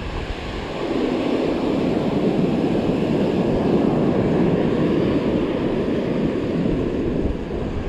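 Surf washing onto the beach with wind buffeting the microphone, swelling louder about a second in and then holding steady.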